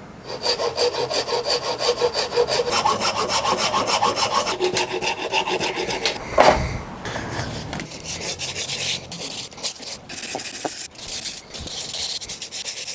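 Rapid back-and-forth strokes of a wood rasp and sandpaper shaping a wooden tree-fork piece by hand. The strokes come thick and even for about six seconds, there is a single sharp knock, and then the strokes are slower and more spread out.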